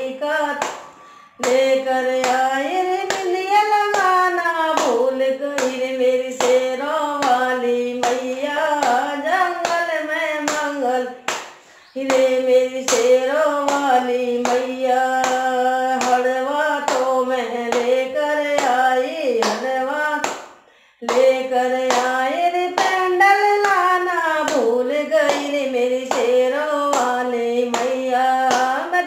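A woman singing a Hindu devotional bhajan unaccompanied, keeping time with steady hand claps. The singing comes in long sung lines with brief pauses for breath about a second in, near the middle, and about two-thirds through.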